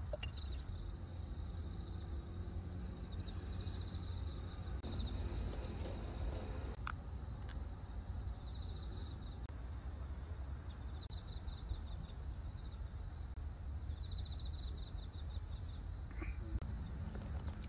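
Insects chirping in short trains of rapid high pulses that recur every few seconds, over a steady low rumble. A single sharp click about seven seconds in.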